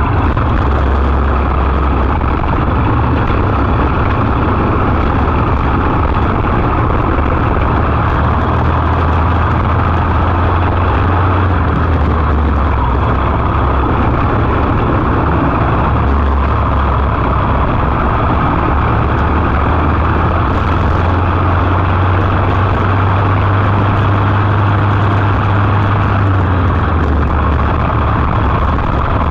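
Briggs & Stratton LO206 single-cylinder four-stroke kart engine running at racing speed, its pitch rising and falling with the throttle through the laps, heard close up from the kart itself with the rush of air and tyre noise over it.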